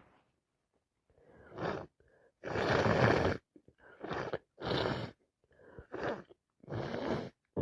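A woman's sneezes and gasping breaths while suffering from sinusitis, in a run of about six separate noisy bursts, the loudest lasting about a second around three seconds in.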